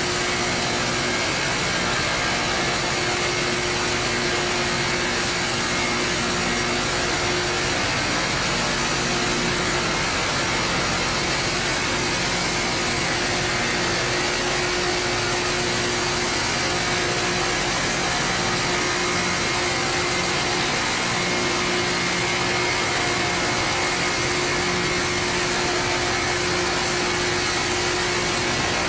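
Rail grinding machine's rotating grinding stones running against the rail head as it reprofiles the rail, a steady harsh grinding with a constant low tone underneath.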